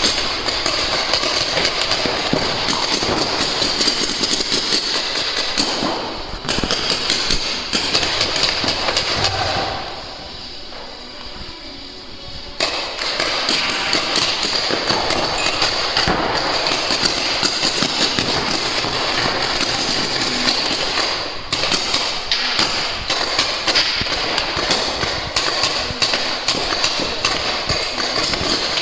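Paintball markers firing in rapid strings, with paintballs smacking into the inflatable bunkers and netting: a dense, continuous clatter of sharp pops and hits. It eases off for a couple of seconds about ten seconds in, then picks up again.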